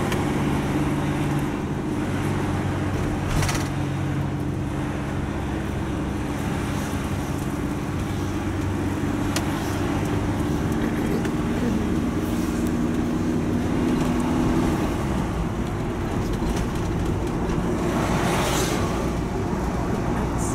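Van engine and road noise heard from inside the cab while driving at a steady speed. The engine hum shifts about fifteen seconds in, with brief whooshes about three seconds in and near the end.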